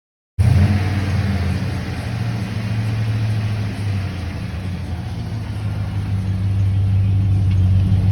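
Chevy Silverado's gasoline V8 running steadily in gear, with the engine note rising slightly near the end, while the freshly rebuilt 4L60E automatic transmission fails to engage: the truck drives neither forward nor in reverse.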